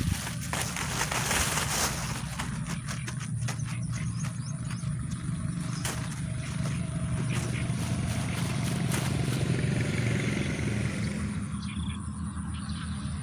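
A steady low motor drone, with scattered sharp clicks over it.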